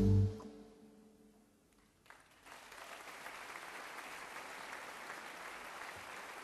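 A held low chord ends the music and cuts off sharply. After a moment of near silence, an audience breaks into steady applause about two seconds in and keeps clapping.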